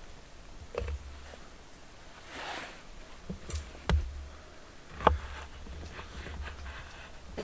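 A few sharp knocks and clicks, like objects being handled and set down, with a brief rustling swish about two and a half seconds in.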